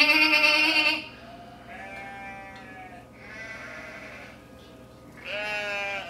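A woman imitating a goat's bleat: a loud, wavering bleat about a second long at the start, followed by several quieter bleats.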